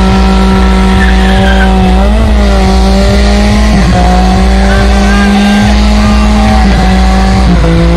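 Toyota sedan doing a burnout: its engine is held at high revs in a loud, steady drone that dips briefly a few times, while the driven tyres spin and squeal on the pavement.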